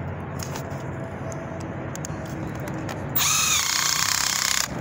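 Cordless drill driving a screw into a metal lighting track, running for about a second and a half near the end, with its motor whine rising as it spins up.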